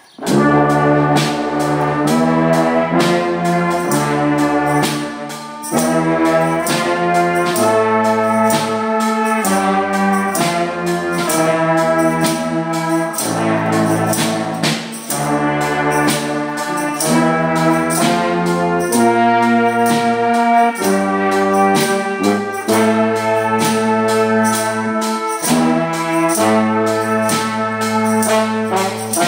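A brass band playing: trumpets and trombones carry the tune over a tuba bass line moving in separate held notes, with a snare drum and cymbal keeping a steady beat of about two strokes a second. The music starts right at the beginning.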